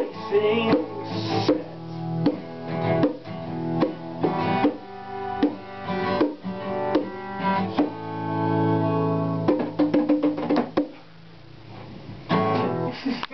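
Acoustic guitar strummed in chords. About two-thirds of the way through, one chord is left ringing for a second or so, then quick strums, a brief quieter patch and a last run of strumming.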